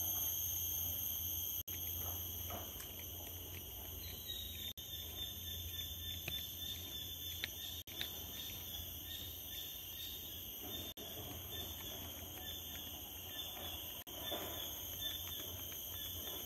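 Steady high-pitched drone of insects, several constant tones layered together, with a few faint short chirps. The sound drops out for a moment every three seconds or so.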